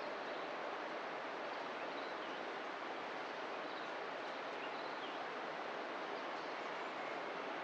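Countryside ambience: a steady, even rushing noise with faint, scattered bird chirps.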